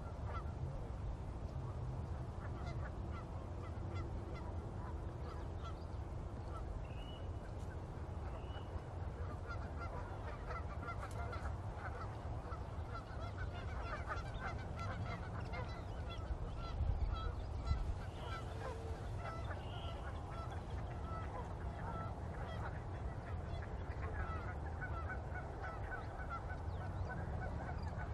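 A flock of geese honking, many short calls overlapping without a break, over a steady low rumble.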